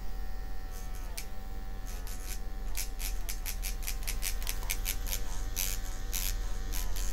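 Mummy Tattoo Short rotary tattoo pen running at 7 volts, a steady electric motor buzz whose pitch dips slightly now and then as the needle works into practice skin. From about a second in, a run of short scratchy clicks sounds over it.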